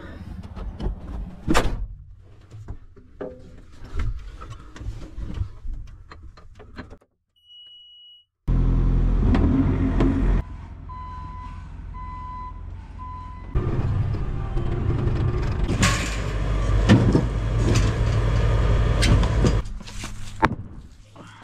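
Compact track loader's diesel engine running, with clicks and clanks from the machine. The engine grows loud as it is worked, and three short beeps from the loader's warning alarm sound in the middle. The sound drops out briefly about seven seconds in.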